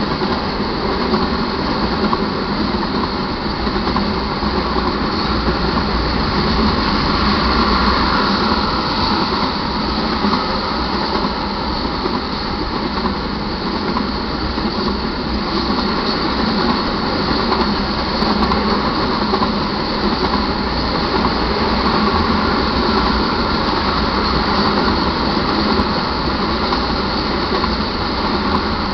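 Crude-oil tank cars of a freight train rolling past at a grade crossing: a steady, continuous rumble of steel wheels on rail.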